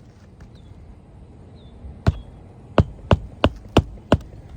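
Hammer striking a roofing nail into an asphalt shingle: six sharp strikes, the first about two seconds in and the other five in quick, even succession.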